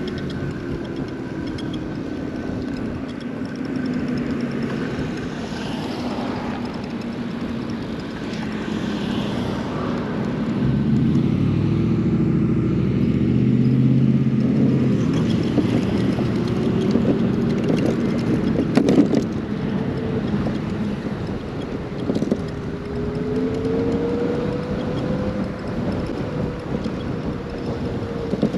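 Riding noise from a motorcycle group ride: a steady rush of wind and road noise, with a motor or engine tone that drops in pitch over the first several seconds and climbs again in the second half. It gets louder for a few seconds in the middle, and a sharp knock comes near two-thirds of the way through.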